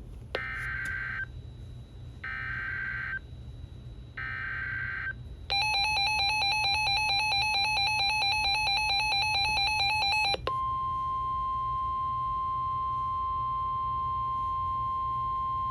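Emergency Alert System tones: three short bursts of warbling data tones (the SAME header) about a second apart, then about five seconds of the harsh two-tone attention signal, then a steady single tone near 1 kHz (the weather radio alert tone) held for over five seconds.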